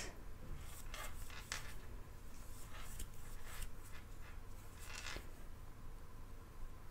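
Faint, irregular scratchy rustles of lace yarn being drawn through stitches with a crochet hook, a handful of short strokes spread over several seconds.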